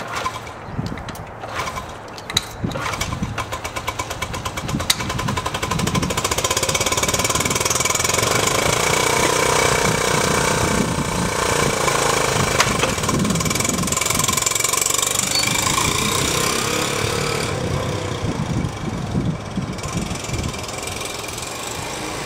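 1986 Honda CT110 Trail's small single-cylinder four-stroke engine being kick-started cold. It fires irregularly with sharp pops for the first few seconds, then catches and settles into a steady run, its speed rising and falling with the throttle.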